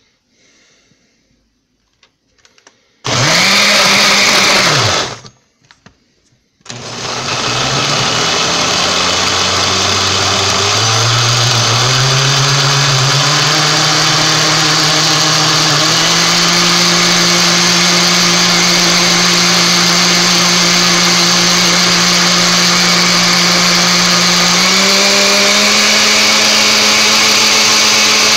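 Countertop blender grinding chocolate snack cakes in liquid. It gives one short pulse about three seconds in, then starts again a second or so later and runs steadily. Its motor pitch climbs in steps as the cakes break down into liquid.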